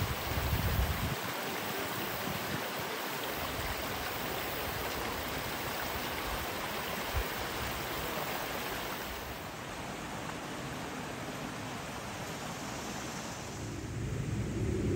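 Rushing creek water, a steady even rush. Near the end the rush thins and a low rumble comes in.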